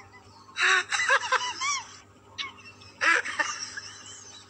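Someone laughing in two short bursts, about half a second in and again around three seconds in.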